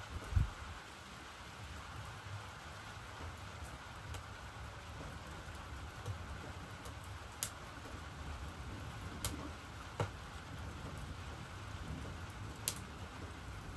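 Steady rain falling, with a few sharp isolated ticks scattered through it and a short low thump about half a second in.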